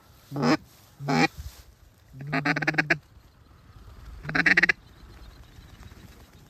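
Mallard-type duck quacks: two short single quacks, then two quick runs of rapid quacks, the second run the loudest.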